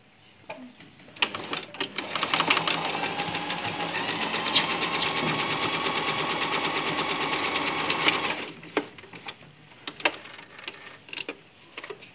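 Electric sewing machine stitching a seam: a few separate stitches about a second in, then a run of steady, fast stitching for about six seconds that stops suddenly. A few light clicks and handling taps follow.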